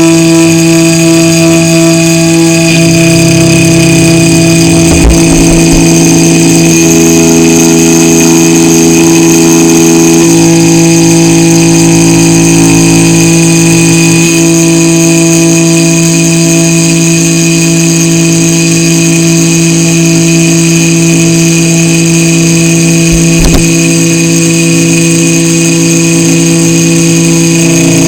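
Small CNC mill's spindle motor running at speed while cutting a printed circuit board, a steady whine of several tones. Extra tones from the axis motors come in for a few seconds about a quarter of the way through, and there are two short low knocks.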